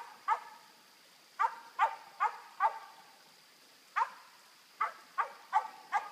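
Squirrel dog barking treed, about ten short, sharp barks in irregular runs with a pause of about a second midway: the dog is announcing a squirrel up a tree.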